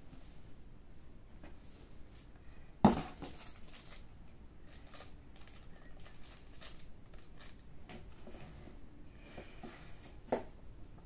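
Handling of unboxed items: a sharp knock about three seconds in and a smaller knock near the end, with light crinkling of small clear plastic parts bags being taken from a cardboard box.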